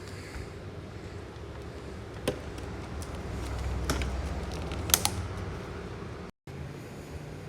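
Plastic parts of a Shark vacuum being handled and unscrewed during disassembly: scattered clicks and knocks, with a sharp click about two seconds in and the loudest click about five seconds in, over a low handling rumble.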